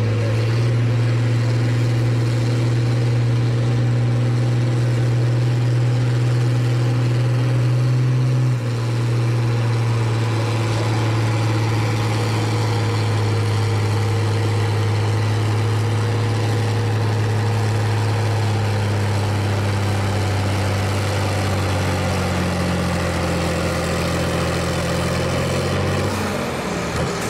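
John Deere diesel tractor engine pulling a weight-transfer sled under full load, a loud steady drone. Its pitch drops suddenly about a third of the way in and sags lower again later as the sled's weight builds and the engine lugs down, running out of power; it eases off near the end.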